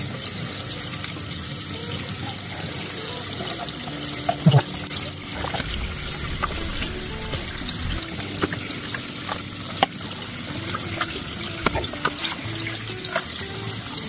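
Tap water running steadily into a kitchen sink, with small wet clicks and squelches as gloved hands pull out a catfish's innards.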